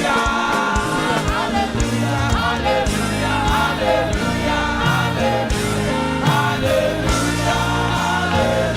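Gospel praise music: a choir and congregation singing together over a live band with a steady beat.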